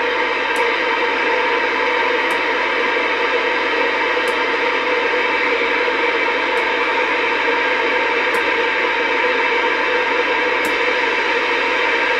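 CB radio receiver hiss (static) from the set's speaker, steady and loud, while the channel selector steps up one channel at a time. A faint click comes with each channel change, about every two seconds.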